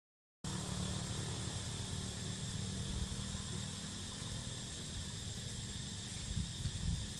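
Steady outdoor background of a low rumble and an even, high insect drone, with no clear animal calls. The sound cuts out completely for a split second at the start, then runs on unchanged, the rumble swelling a little near the end.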